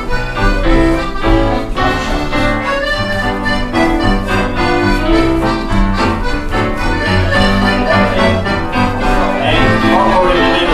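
Live country dance band playing a lively tune led by accordion over a steady dance beat. Dancers' voices rise over the music near the end.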